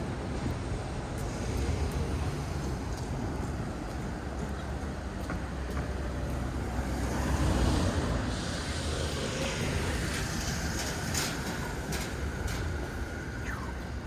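Outdoor traffic noise: a steady rumble that swells as a vehicle passes about halfway through, with a few scattered clicks in the second half.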